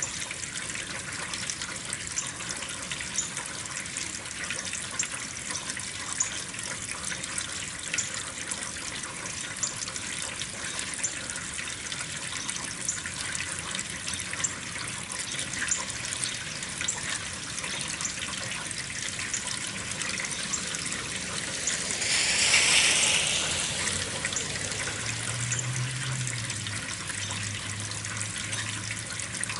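Steady spring rain falling, a constant hiss with many small dripping ticks. About two-thirds of the way through, a louder rushing sound swells and fades over a couple of seconds, followed by a low hum.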